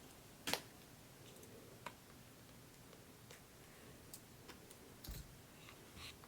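Faint, sparse clicks and taps of a small camera's battery compartment and button-cell batteries being handled: one sharper click about half a second in, a few light ticks, and a soft thump about five seconds in.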